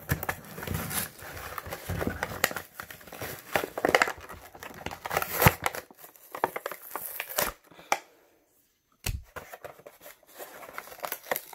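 Clear plastic toy packaging crinkling and crackling in irregular bursts as it is handled and picked open. About three quarters of the way through it goes briefly quiet, then a sharp click and more crinkling follow.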